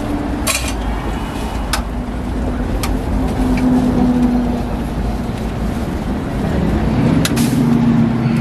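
Hotteok frying in a deep tray of oil over a steady low rumble. A few sharp metal clicks come from tongs knocking on the tray and wire rack, about half a second in, near two and three seconds in, and twice near the end.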